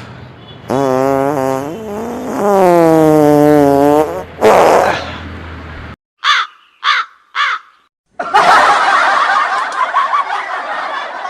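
A prank fart noise: a long, drawn-out fart sound with a wavering pitch that slides down at the end. It is followed by a short noisy burst, three quick short sounds about half a second apart, and then a few seconds of noisy hiss.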